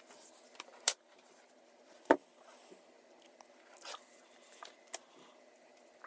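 Hands handling nylon paracord: the cord rustles and slides, with a few sharp clicks and one louder knock about two seconds in. A faint steady hum runs underneath.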